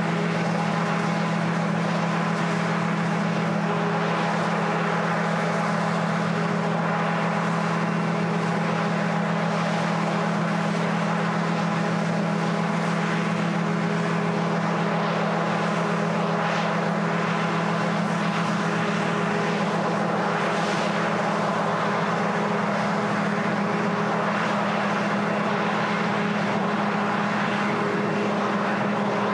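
Steady, unchanging multirotor camera drone propeller hum, with two close pitches held throughout.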